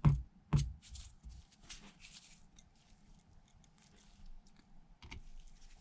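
Small repair tools and iPhone parts handled on a workbench: two sharp clicks at the start and about half a second in, then faint scattered ticks and light scrapes.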